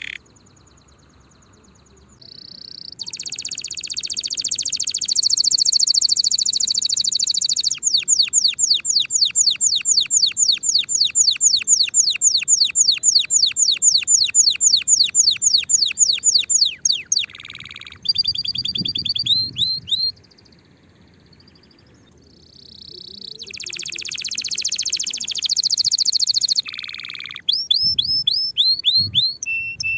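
Domestic canary singing long song phrases of high trills. One phrase is a run of rapid, evenly repeated notes lasting several seconds. The song breaks off briefly twice, near the start and about two-thirds of the way through.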